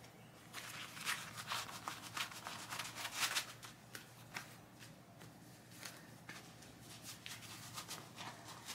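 Worn leather work gloves rustling and rubbing as they are handled and pulled onto the hands, a run of short, irregular scuffs.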